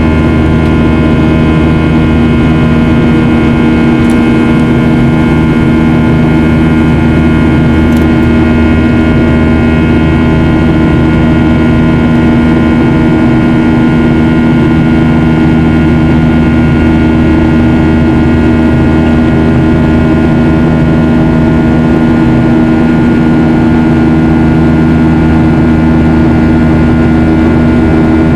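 Boeing 737-800's CFM56-7B jet engines running steadily, heard inside the passenger cabin: a constant roar with several steady whining tones on top.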